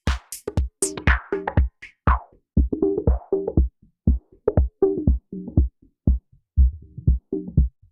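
Electronic drum-machine loop played through the Softube Model 72, a Minimoog emulation, as an insert effect: steady beats with short pitched notes. The high end fades away over the first two seconds, leaving a darker, muffled loop.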